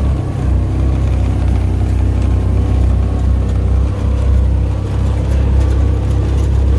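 Yamaha Rhino 700 side-by-side's single-cylinder engine running steadily as it drives along, a low, even drone.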